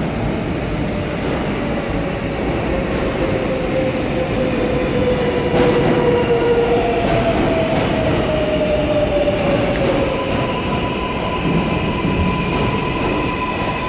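Subway train pulling into the station: a steady rumble of wheels on rails with a whine that slides slowly down in pitch as it slows, then a steady high whine near the end.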